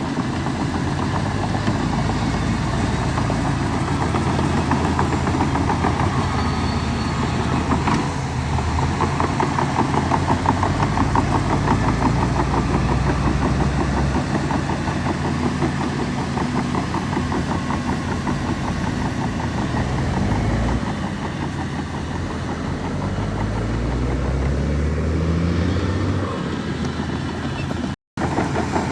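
Heavy diesel engine of earthmoving machinery running steadily, revving up about three-quarters of the way through. The sound drops out for an instant near the end.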